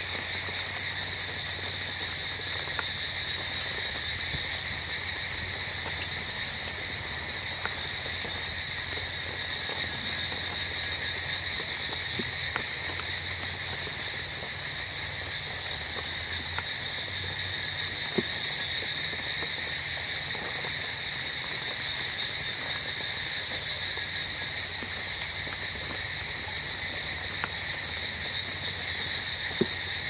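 A dense chorus of frogs calling at night, many calls blending into one steady, unbroken high-pitched drone.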